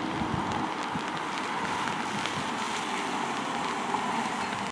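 A car driving on a wet street, its tyres making a steady hiss as an SUV drives up to the curb.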